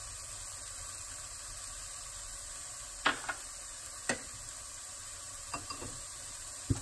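Chopped leeks, carrots and onion frying in oil in a non-stick pan, a steady soft sizzle. A few sharp taps come in the second half.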